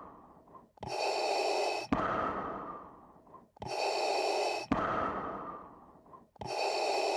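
Darth Vader's mechanical respirator breathing sound effect, three slow breaths about three seconds apart. Each is a hissing, slightly whistling draw that ends in a sharp click, then a fading exhale.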